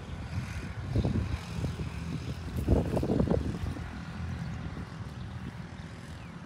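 A low engine drone, swelling louder about a second in and again around three seconds in.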